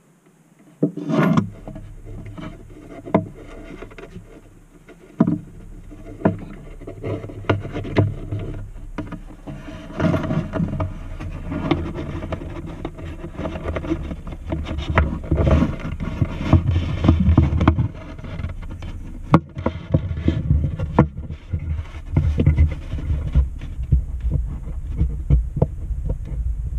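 Handling noise inside a hollow acoustic guitar body: many knocks, clicks and rubs as a hand and a wooden installation jig for a K&K pickup move against the wood, over a low rumble that starts about a second in and swells in the second half.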